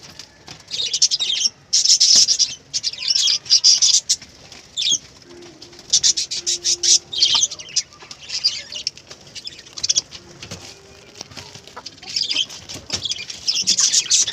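Chickens flapping their wings in repeated short bursts.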